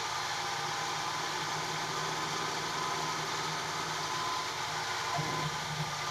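CNC-converted Sieg X2 mini mill running a light engraving pass on stainless steel: a steady motor hum with a few faint steady tones and an even hiss throughout.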